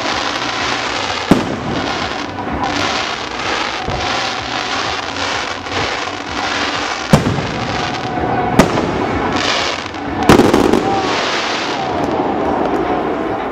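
Aerial fireworks display: a dense, continuous crackle of bursting stars and comets, cut by sharp shell bangs, the loudest about seven and ten seconds in.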